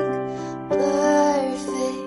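Slow, soft music: a singing voice holding a wavering melody over piano chords, a new sung phrase beginning under a second in.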